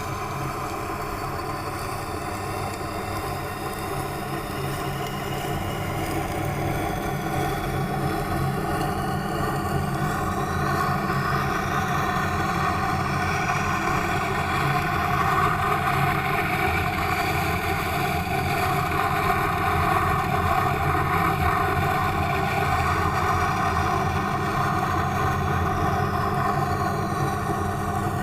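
Tormek T8 wet sharpening machine running with a steady motor hum, and a grinding hiss of a kitchen knife blade on the turning wet stone that grows louder after the first few seconds.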